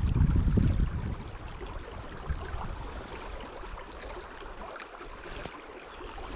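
Wind buffeting the microphone, a low rumble strongest in the first second, then easing to a steady faint outdoor hiss.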